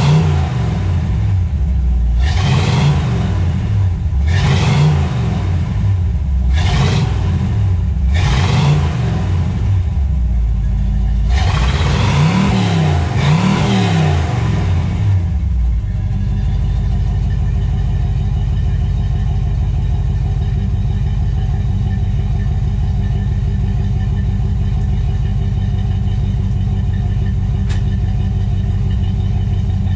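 1964 Pontiac GTO's 389 V8 being revved in a series of short blips, a few seconds apart, while warming up from a cold start. About halfway through the revving stops and the engine settles into a steady idle.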